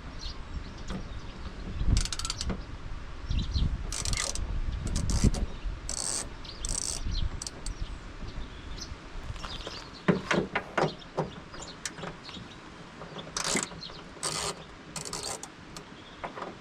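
Socket ratchet clicking in short irregular runs while small screws are undone with an 8 mm socket.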